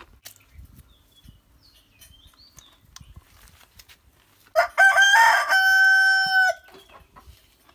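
A rooster crows once, a little past halfway: a few broken notes, then one long held call of about two seconds that cuts off.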